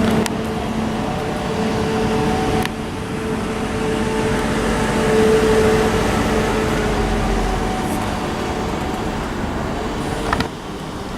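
Class 333 electric multiple unit giving a steady electrical hum over a noisy bed, with a few sharp clicks. The sound drops suddenly near the end.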